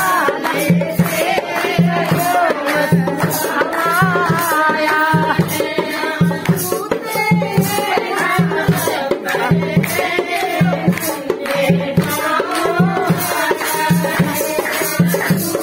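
A devotional bhajan, sung to a steady hand-drum beat with jingling percussion.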